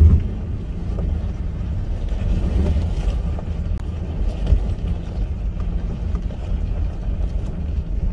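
Cabin noise of a Hyundai Starex camper van rolling slowly over a gravel riverbank: a steady low rumble of engine and tyres with a few faint ticks from the stones, and a brief low thump right at the start.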